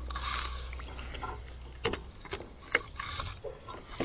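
Light clicks and knocks of gear being handled aboard a kayak, over a faint low hum that cuts off about two seconds in.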